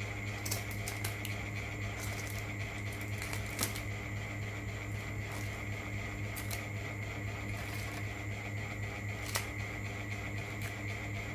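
A steady low hum with scattered light clicks and taps, one a little louder about three and a half seconds in and another near the end.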